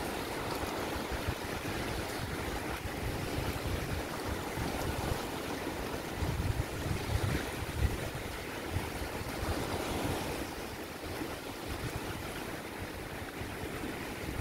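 Small waves washing and breaking on a sandy estuary shore, with wind gusting on the microphone as a low rumble, strongest about halfway through.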